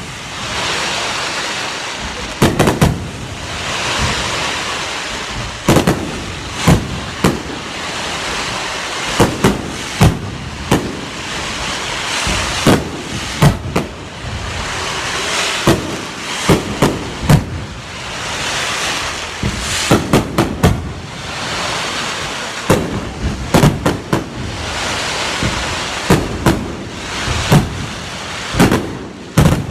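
Aerial fireworks display: a long string of loud booms, often in quick pairs and clusters, over a continuous crackle and hiss of bursting shells.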